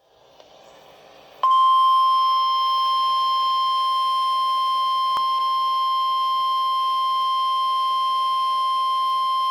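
Weather-radio warning alarm tone: a single steady beep near 1 kHz (the 1050 Hz NOAA Weather Radio alert) that comes in abruptly about a second and a half in, after faint hiss, and holds one unbroken pitch. It signals that an urgent warning broadcast, here a flood warning, is about to be read.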